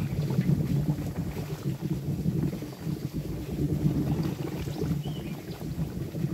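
Molten wax boiling around a wooden bee box in a wax-dip tank, a steady low bubbling and crackling as the moisture trapped in the wood boils off as steam.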